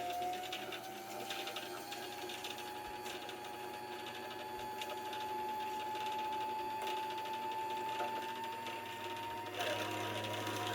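Sewing machine motor running steadily to wind thread onto a plastic bobbin, its whine slowly rising in pitch as it speeds up. A low hum joins near the end.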